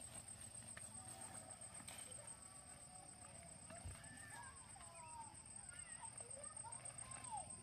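Faint outdoor ambience: a steady, high-pitched pulsing insect trill, with scattered short chirps from birds that grow busier from about halfway through.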